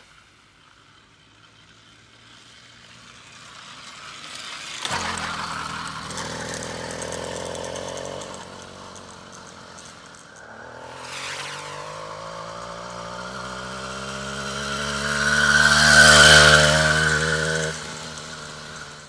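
Small carbureted 3.5 hp motorized-bicycle engine starting about five seconds in and then running. Its pitch rises steadily as the bike accelerates, loudest as it passes close by around sixteen seconds in, then drops away.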